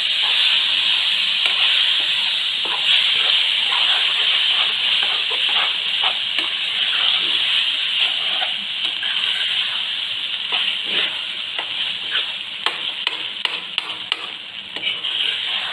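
Paneer masala sizzling in a non-stick wok while a spatula stirs it, with short scraping and tapping ticks against the pan over a steady hiss. The sizzle eases off a little toward the end.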